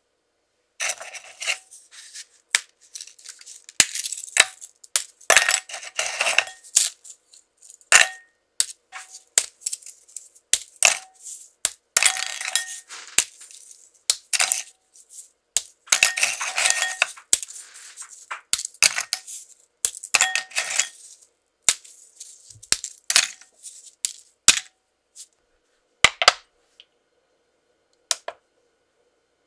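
Crisp Maria biscuits being snapped by hand into small pieces, an irregular run of sharp snaps and crunches, with the pieces clinking into a glass bowl. The snapping stops a few seconds before the end.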